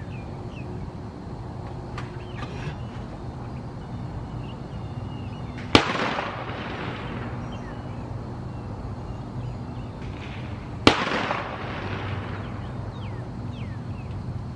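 Two rifle shots about five seconds apart from an M4-style AR-15 fired off a bench rest, each a sharp crack followed by an echo that dies away over about a second.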